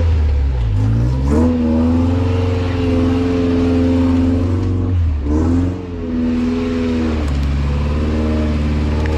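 A lifted off-road pickup truck's engine running under throttle as it crawls a rough trail. The revs drop and climb back twice, once near the start and once about five to six seconds in, then hold steady.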